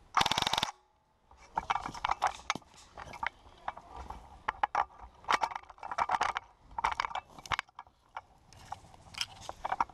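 A loud half-second burst of rapid strokes at the start, then irregular clusters of clicking, ratcheting and scraping from handling a VFC Avalon Saber CQB airsoft electric rifle and its magazine.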